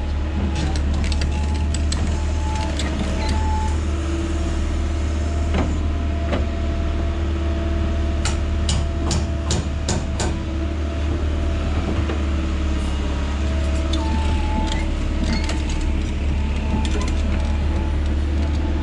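Kobelco SK160 excavator running steadily while digging out a septic tank hole, its engine hum continuous. Its hydraulics whine on and off. A quick run of sharp clanks and knocks comes about 8 to 10 seconds in.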